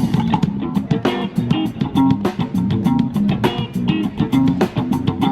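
Background music with plucked guitar, bass and a steady beat.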